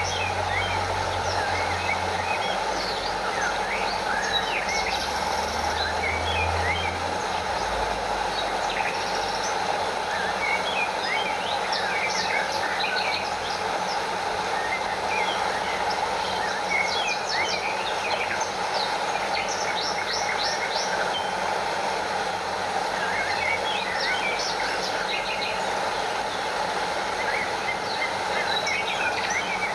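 Stream water rushing and splashing over a small waterfall in a steady, even flow, with many short bird chirps scattered over it. A low rumble underneath stops about seven seconds in.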